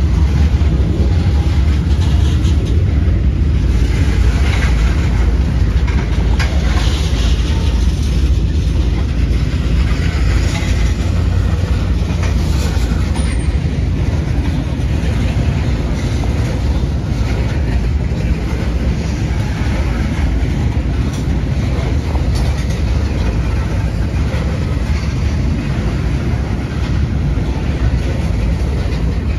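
Ethanol tank cars of a freight train rolling past: a steady low rumble of steel wheels on rail, with clicking and clatter as the wheels pass over rail joints.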